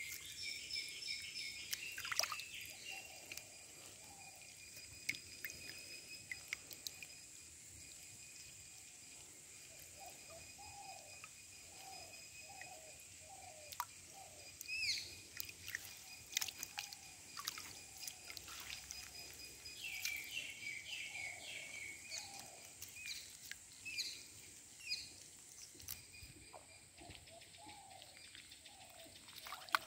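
Birds chirping and calling over a steady high insect drone, with small water splashes and drips as hands work a net in shallow river water.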